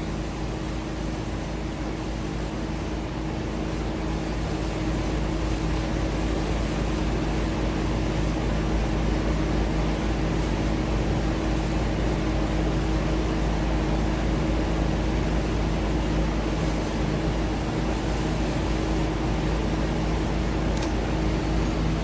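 2 kW fiber laser welding machine running a weld on a stainless-steel fire pot: a steady hum and hiss with a few constant low tones, swelling slightly over the first several seconds.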